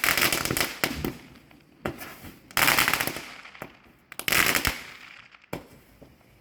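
Black Cat Happy 36-shot fireworks cake firing: three loud bursts of rapid crackling pops about two seconds apart, with single sharp cracks between them.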